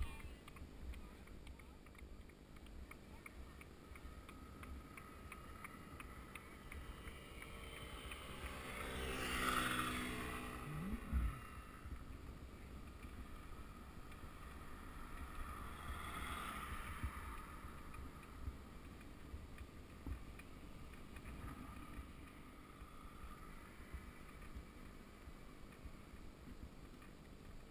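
Wind rumbling on the microphone of a camera riding on a bicycle, with a motor vehicle passing about a third of the way in: its engine note swells, drops in pitch and fades, and a sharp knock comes near its loudest point. A fainter swell of the same kind follows a few seconds later.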